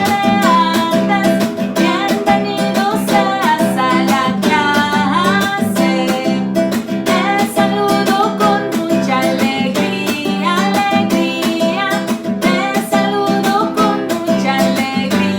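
Background music: a strummed string instrument with a bending melody line over it, most likely singing, running steadily with a regular strummed beat.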